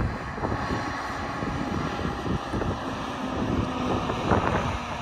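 Wind buffeting the microphone over the distant running of a Scania S770 truck's V8 diesel engine as the truck approaches.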